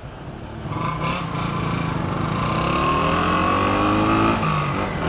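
Honda CG Fan 125's single-cylinder engine pulling away from a stop, its revs rising and then dropping about four seconds in as it shifts up a gear.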